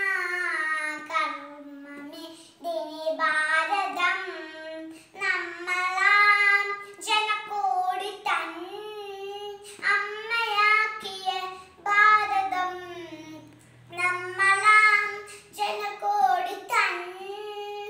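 A young girl singing solo, unaccompanied, in sustained phrases separated by short pauses for breath.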